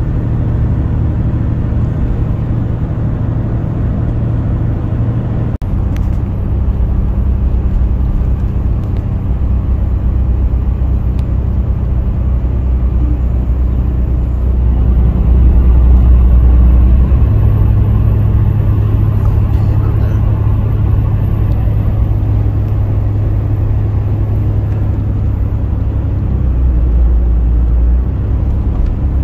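Steady road noise and engine drone inside a car at highway speed: a low rumble of tyres and engine with a few steady low hums, briefly dipping about six seconds in and swelling a little midway.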